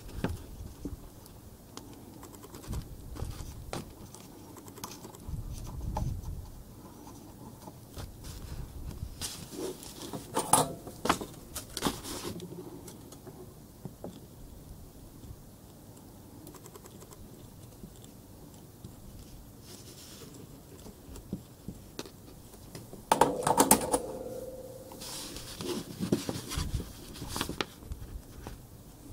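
Small handling noises of wires and a soldering jig: light clicks, taps and scrapes, with two louder spells of rattling and clicking, one about a third of the way in and one past three-quarters of the way.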